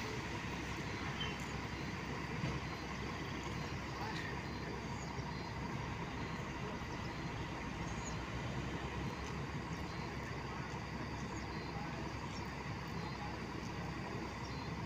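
Diesel engine of an intercity coach idling steadily at a platform.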